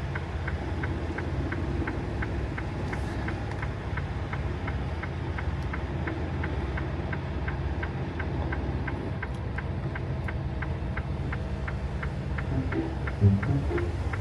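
A semi truck's diesel engine idling, heard from inside the cab, with a light, even ticking about three times a second over it. Music comes in near the end.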